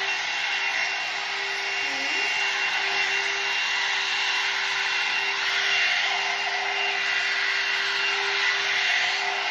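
A L'ANGE Le Volume 2-in-1 titanium hot air brush running steadily: a constant blowing hiss over a steady motor hum, with the rubbing of the brush being drawn through damp hair.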